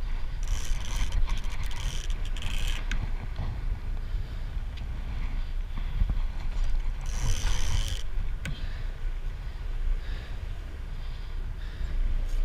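A sport-fishing boat's engine rumbles steadily under wind on the microphone. Short bursts of hissing noise come twice, near the start and about two-thirds of the way in.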